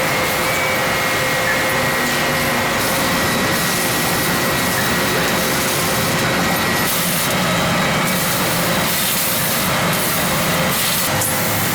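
Soba noodle-making machines running in a noodle factory: a steady, dense mechanical din with a constant high whine.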